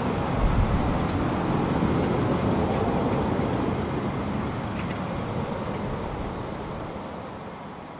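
Airbus A330-243's Rolls-Royce Trent 700 turbofans at climb power: a broad, steady jet rumble that fades gradually as the airliner climbs away.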